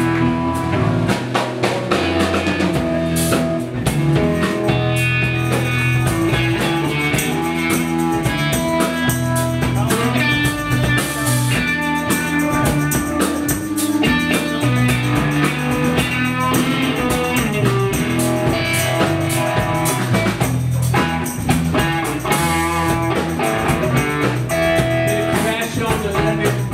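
Blues-rock band playing live: electric guitar over bass guitar and a drum kit, with no singing.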